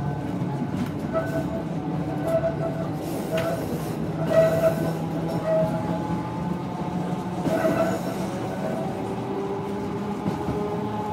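Blackpool Balloon double-deck electric tram running on its rails, heard from the driver's cab: a steady motor hum and running noise, with short bouts of wheel squeal and a few knocks in the middle. Near the end a motor whine rises in pitch as the tram picks up speed.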